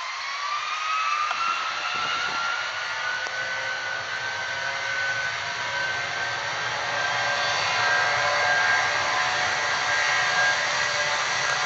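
Boeing 757's twin jet engines spooling up on the takeoff roll: a whine rising in pitch over the first few seconds, then holding steady over the jet roar.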